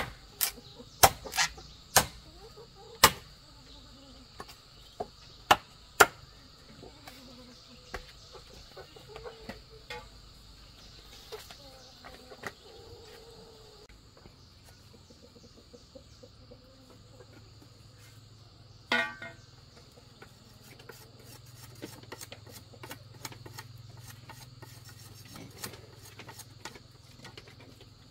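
A machete chopping into a green bamboo pole with sharp strikes about a second apart over the first six seconds, then lighter shaving and tapping, with one more hard knock about two-thirds through. A steady buzz of insects runs underneath throughout.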